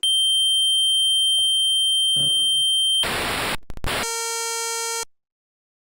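Computer-synthesized sound output from a live-coded program in a custom music programming language. Two steady high sine tones are held for about three seconds, then a short burst of noise and a few clicks, then a buzzy pitched tone for about a second that cuts off suddenly.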